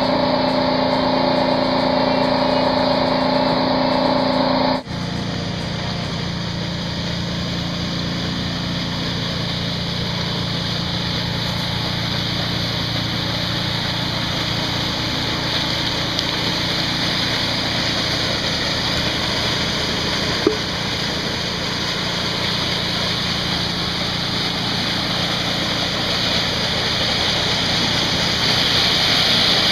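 Steady humming tones for about five seconds, cut off abruptly. Then water gushes and splashes over pebbles and a plastic sheet, with a low steady hum underneath, and the rushing gets louder near the end.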